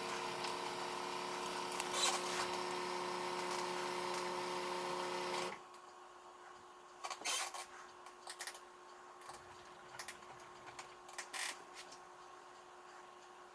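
Steady machine hum with several held tones that cuts off suddenly about five and a half seconds in. A faint hum stays after it, with a few light clicks and taps.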